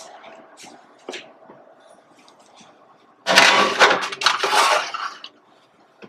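Kitchen clatter of pans or dishes, one busy rattling burst of about two seconds a little past the middle, after a few faint knocks.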